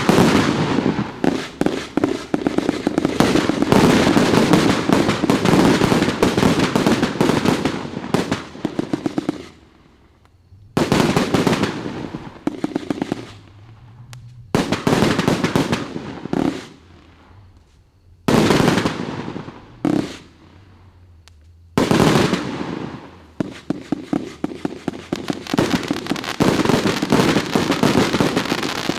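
138-shot consumer fireworks cake firing rapid volleys of shots and crackling. The barrage breaks off after about nine seconds, returns in several separate bursts with short pauses between them, then runs on densely again.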